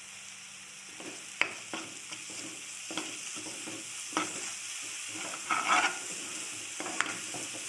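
Chili masala paste with curry leaves sizzling in hot oil in a nonstick pan, stirred and scraped with a metal spoon, with a few sharp knocks of the spoon against the pan.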